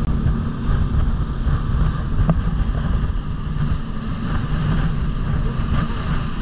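Motorboat running at speed: steady engine noise mixed with rushing water from the hull and wake, and wind buffeting the microphone.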